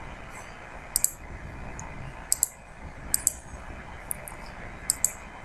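Computer mouse button clicks, about five crisp double ticks (press and release) spaced roughly a second apart, over a steady faint hiss.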